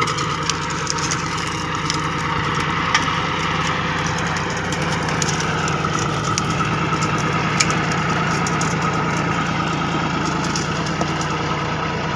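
John Deere 5050 tractor's diesel engine running steadily under load as it pulls a reversible mouldboard plough deep through the soil.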